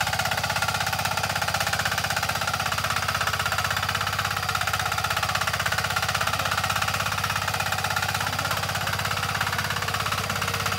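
A 178 walk-behind tractor's single-cylinder diesel engine running steadily under plowing load, a rapid, even stream of pulses.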